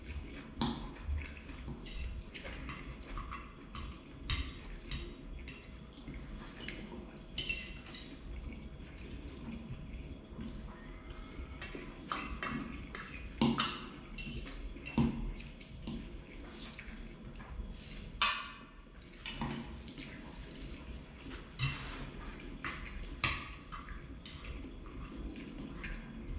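Metal fork clinking and scraping on a plate of food, with wet chewing and mouth sounds between, heard as scattered short clicks and smacks.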